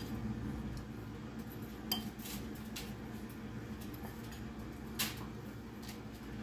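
A metal spoon clinking against a ceramic bowl a few times as dry seasoning is scooped out, with the clearest clinks about two seconds in and about five seconds in.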